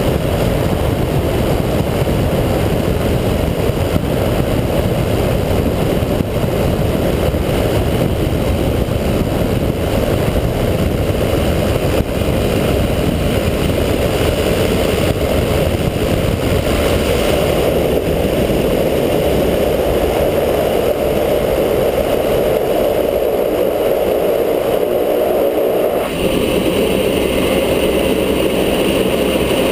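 Cessna 208 Caravan's Pratt & Whitney PT6A turboprop engine and propeller running steadily with a rush of airflow past the wing, through the final approach and landing on a grass airstrip. The sound changes abruptly near the end as the aircraft is on the ground.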